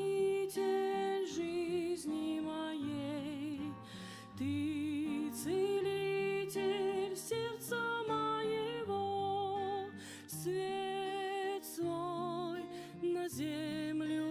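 A Christian song: a sung melody with vibrato over instrumental accompaniment, changing note every half second or so.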